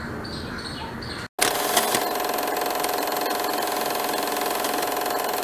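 Quiet room tone, then after a short dropout about a second and a half in, a film projector starts abruptly and runs steadily.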